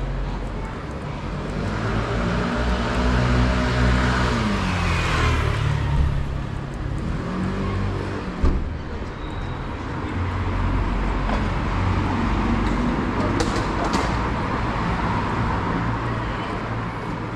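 Street traffic: a motor vehicle's engine goes past close by, its pitch dropping as it passes, over a steady low rumble of traffic. A single sharp knock about eight and a half seconds in.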